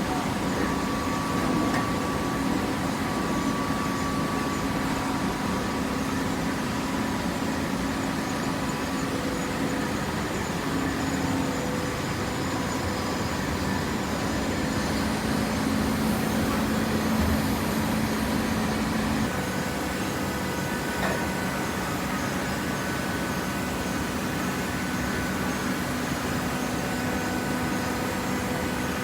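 Steady machinery running: a constant hum with a few held tones, which change slightly about two-thirds of the way through.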